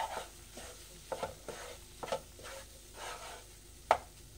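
Spatula scraping and pushing roasted gram flour around a nonstick kadai in a few separate strokes, with one sharp tap of the spatula on the pan near the end. Under it a faint sizzle as the sprinkled water cooks off the besan.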